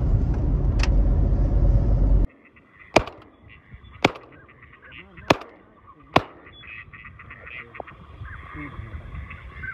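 Low road rumble inside a moving car, then it cuts off and a shotgun fires four times, about a second apart, at a flock of ducks overhead. Faint waterfowl calls follow near the end.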